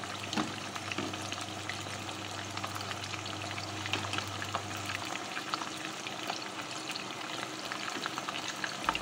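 Boneless chicken pieces frying in hot oil in a wok: a steady sizzle dotted with small crackles and pops.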